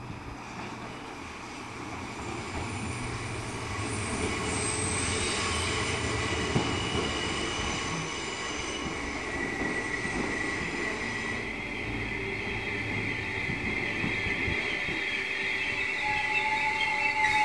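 Merseyrail electric multiple unit pulling into the platform, its wheels squealing with high-pitched whines over a steady rumble, getting louder as it comes in.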